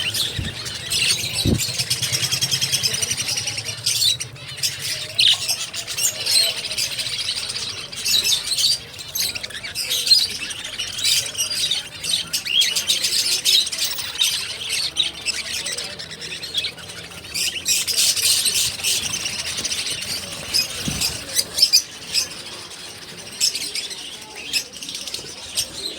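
Many small caged birds chirping and squawking at once, a dense, continuous high twittering.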